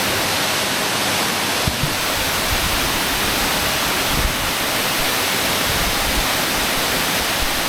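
Loud, steady rush of the Allt Smoo waterfall pouring into the freshwater chamber of Smoo Cave.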